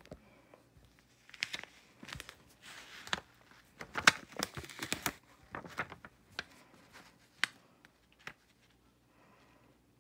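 Crinkling and rustling of a plastic-backed heat-transfer vinyl sheet on fabric being handled and smoothed down, with irregular sharp clicks and taps. It dies down after about eight seconds.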